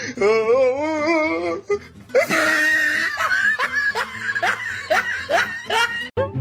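Background music under a wavering, high pitched cry, then, from about two seconds in, a run of short rising laughs or yelps about twice a second that cuts off abruptly near the end.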